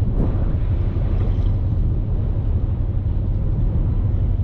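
A boat engine running with a steady, unbroken low hum.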